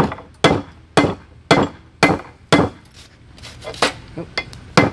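Hand hammer striking red-hot steel on an anvil, about two full blows a second, each with a short metallic ring. Near the end come a few lighter, quicker taps, then one more full blow.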